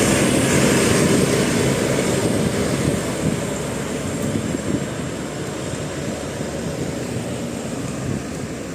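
A bus driving past, its engine and road noise without any horn tone, slowly fading as it moves away.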